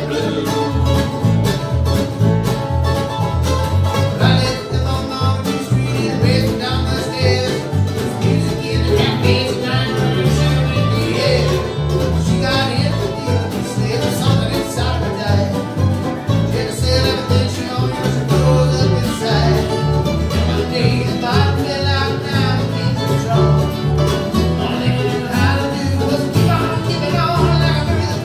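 Live bluegrass string band playing: fiddle, mandolin, acoustic guitar, resonator guitar and upright bass together, in a steady, continuous tune.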